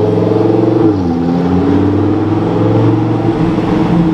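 Lamborghini Huracán Performante's V10 engine pulling away under acceleration. The pitch drops sharply about a second in at a gear change, then climbs steadily again.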